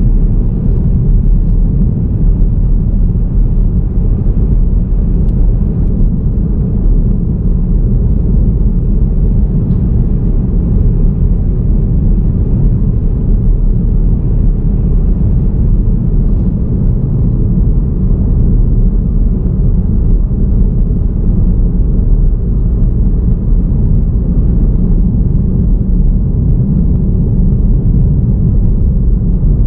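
A car driving steadily along a road, a constant low rumble of tyre, engine and wind noise.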